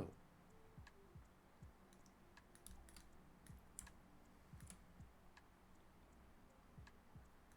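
Faint, scattered clicking of a computer mouse and keyboard, a dozen or so irregular clicks.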